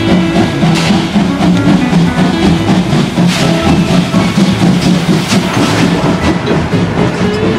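Music with sustained low notes, over the sound of a steam locomotive and its coaches rolling past close by.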